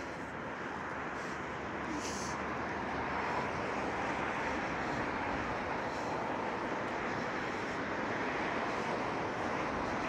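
Wind noise on the microphone: a steady rushing that builds slightly over the first few seconds, then holds.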